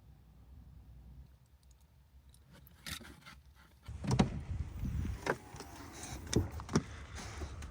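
Near silence at first, then from about four seconds in a run of light clicks, clinks and rustling from small objects being handled.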